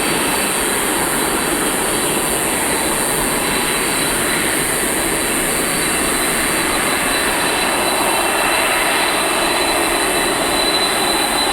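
Jet engines of a Boeing 747-400 running steadily at low power, a broad rush with a thin steady whine over it, growing slightly louder about two-thirds of the way through.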